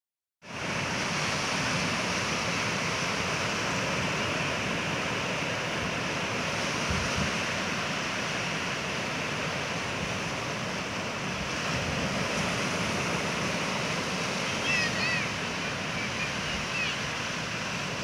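Ocean surf washing steadily onto a sandy shore: a continuous rushing hiss of breaking waves. A few faint, brief high chirps come in about three-quarters of the way through.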